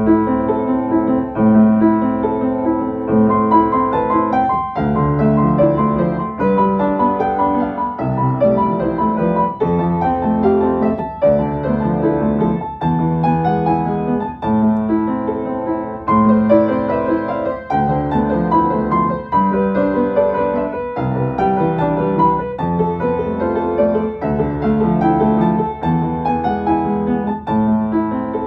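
Background piano music, a gentle melody with chords played continuously.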